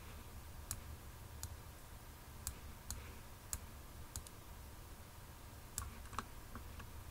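Faint, irregular clicks of a computer mouse, about a dozen spread unevenly, over a low steady hum.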